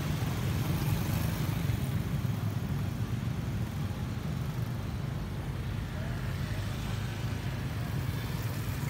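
Motorcycle and scooter engines running at low speed as they ride past, a steady low hum.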